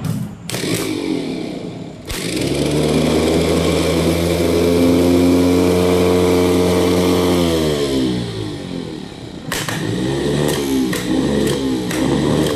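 L&T vibratory roller's electric starter motor bench-run off a battery through a jumper wire, with no load. A couple of sharp clicks come as the wire makes contact. About two seconds in the motor spins up with a steady whine, runs freely for about five seconds, then winds down in falling pitch. About a second and a half later it is spun up again and runs less steadily.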